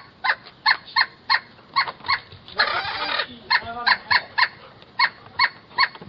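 An animal calling in a steady series of short, sharp calls, about two to three a second, with a longer, rougher noise about halfway through.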